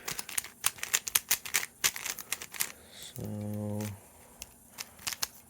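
A MoYu Meilong 3C speed cube, packed with Vaseline, being turned quickly: a fast, irregular run of sharp plastic clicks and clacks from its layers.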